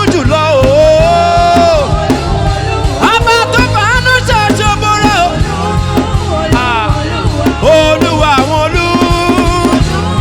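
Live worship music: a voice sings long, sliding, wavering held notes over a steady band accompaniment with bass and light percussion.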